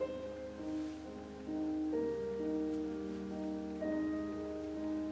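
Gentle instrumental background music of held, piano-like notes, several sounding together and changing about every second.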